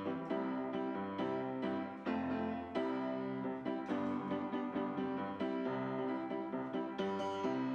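Background piano music: a gentle run of repeated notes at an even pace.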